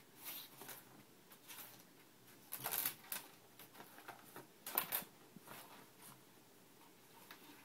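Siamese cat pawing at small loose items in a desk drawer, which skitter and rattle against the drawer in irregular scrapes and clatters, loudest a little under 3 s in and again about 5 s in.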